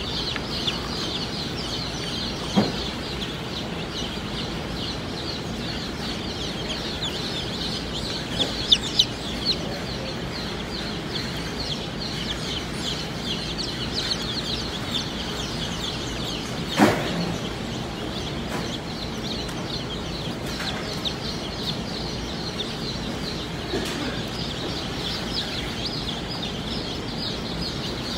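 A crowd of newly hatched Bielefelder chicks peeping continuously, a dense overlapping chorus of short high cheeps. A few sharp knocks stand out now and then, the loudest about two-thirds of the way through.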